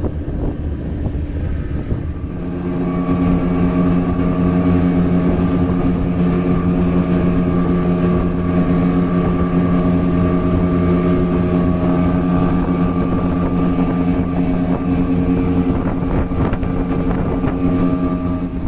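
Small motorboat's engine running at a steady pitch under way, growing louder about two seconds in and then holding steady.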